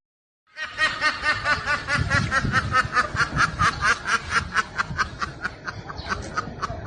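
A long, rapid snickering laugh, about six or seven quick pulses a second. It starts about half a second in and trails off a little near the end.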